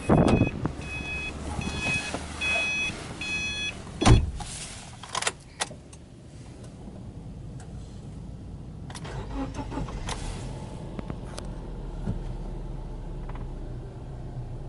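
A car's warning chime beeping over and over, then a door thudding shut about four seconds in. About nine seconds in, the Subaru Forester 2.0XS's 2.0-litre flat-four (boxer) engine is cranked and starts, settling into a steady idle near 1,000 rpm.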